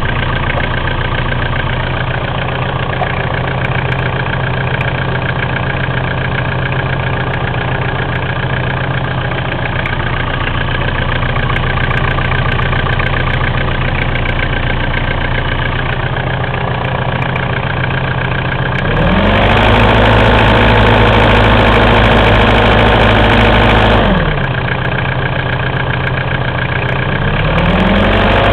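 Mitsubishi 4M40 2.8-litre turbo-diesel engine idling, with a knock in the engine that the owner is recording. About two-thirds of the way through it is revved up and held for about five seconds, drops back to idle, then rises again near the end.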